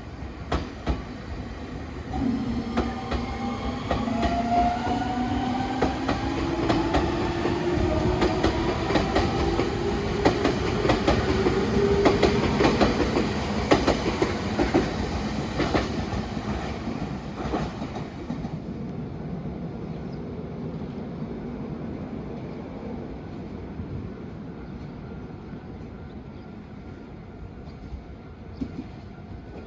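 Electric train passing: the motor whine rises slowly in pitch while the wheels clack over rail joints. It grows loud, then fades away in the second half.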